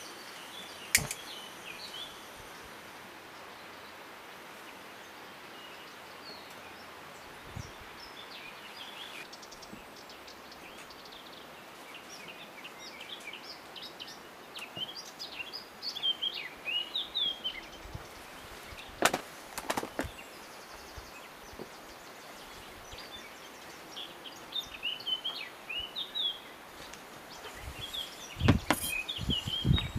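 Outdoor ambience with small birds chirping and twittering on and off. A sharp click sounds about a second in, two knocks come about two-thirds of the way through, and low thumps near the end as a wooden bowl is set down on a wooden table.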